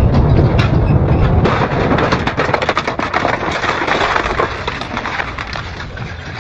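Double-shaft industrial shredder grinding material: a heavy low rumble for about the first second and a half, then dense rapid cracking and snapping that tails off toward the end.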